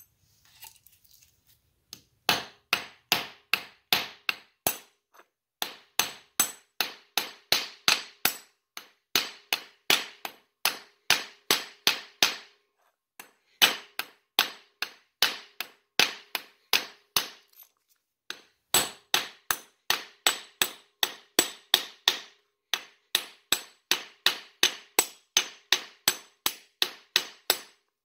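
Hammer peening over the end of a steel-rod solid rivet, cold-setting it with the other end backed against the ground. Quick metallic blows, about three a second, each ringing briefly, in runs broken by short pauses.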